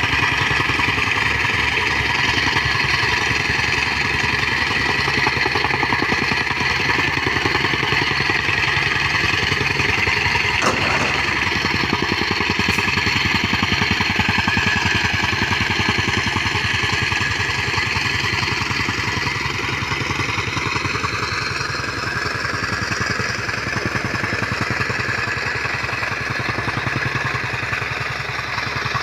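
Soil compactor's small petrol engine running steadily with a fast, even pulse.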